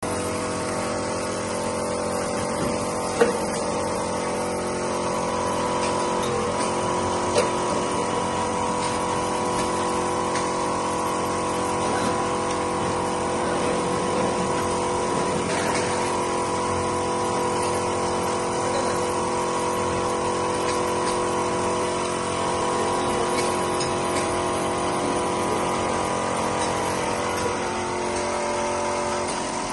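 Automatic bottled-water filling line running, its conveyor and filler machinery giving a steady hum of several fixed tones. Two sharp clicks come in the first eight seconds.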